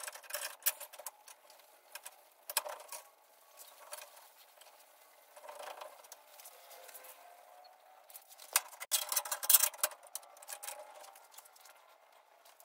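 Long bar clamps being slid along and tightened against a steel truck frame rail and a steel step-notch plate: scattered clicks and light metal scrapes, with a denser run of clicks about nine seconds in.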